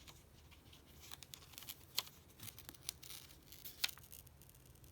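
Faint scattered clicks and scrapes of a tool and fingertips working a replacement camera lens glass onto an iPhone 7's back, pressing down a side whose adhesive won't stick; the sharpest clicks come about two seconds in and near the end.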